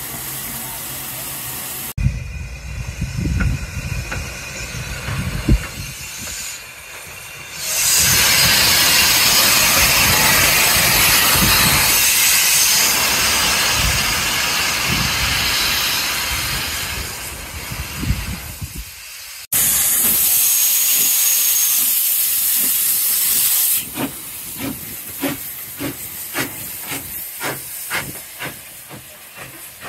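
Furness Railway No. 20, an 1863 steam locomotive, pulling away: long loud hissing of steam from its open cylinder drain cocks, then regular exhaust chuffs, a few a second, over the last few seconds.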